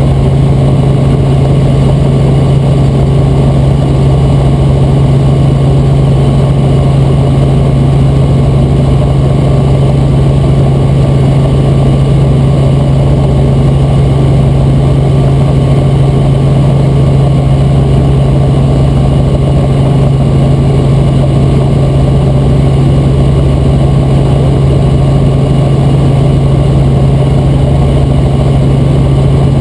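Robinson R44 Raven II helicopter in cruise flight, heard from inside the cabin: the Lycoming six-cylinder engine and rotors make a loud, steady drone with a strong low hum.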